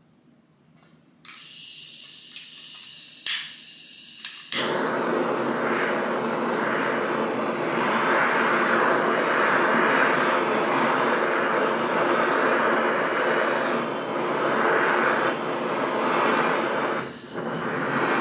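Kitchen blowtorch caramelizing the sugar topping of a crème brûlée: gas hisses, two igniter clicks sound, then the flame catches and runs steadily, dipping briefly near the end.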